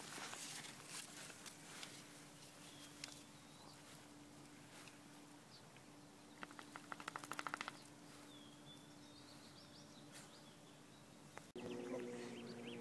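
Faint lakeside ambience with a low steady hum, a few scattered bird chirps and some rustling clicks, and a short fast rattle of clicks a little past the middle. Near the end the sound cuts suddenly to a steady hum of several held tones.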